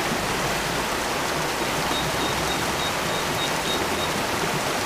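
Shallow stream running over stones, a steady rush of water. A faint run of high, evenly spaced pips sounds about two seconds in and stops about two seconds later.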